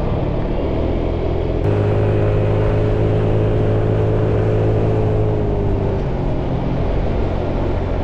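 Motorbike engine running steadily while riding, with an abrupt step in the sound about a second and a half in.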